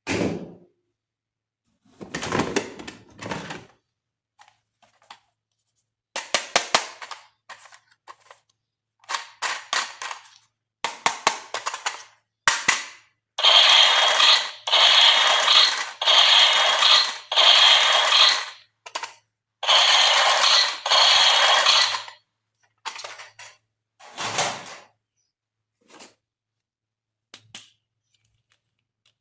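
Handling of plastic toys and packaging: scattered clicks, taps and scrapes, with two longer spells of a dense, steady rattle, one from about 13 to 18 seconds in and a shorter one around 20 seconds.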